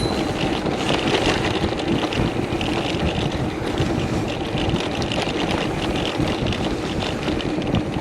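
Steady rush of wind over the microphone of a camera on a moving bicycle, with road noise underneath.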